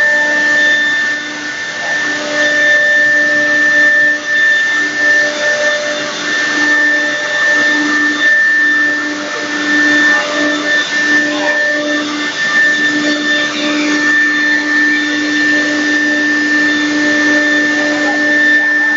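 Chencan M1325AC3 ATC CNC router running: a steady, high whine over a loud rushing machine noise, the lower hum swelling and fading now and then.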